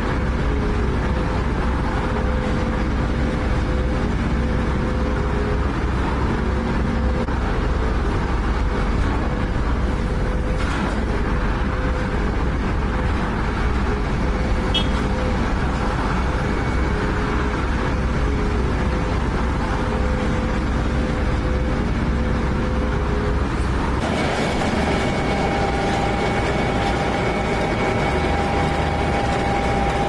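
Engines of road-paving machinery running steadily. About 24 seconds in the sound shifts abruptly to a different steady engine note.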